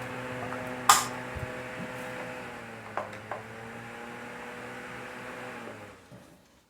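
Holmes Blizzard One Touch desk fan running with a steady motor hum, with a sharp click about a second in and two lighter clicks around three seconds as it is switched off. Near the end the motor hum fades out quickly as the fan stops.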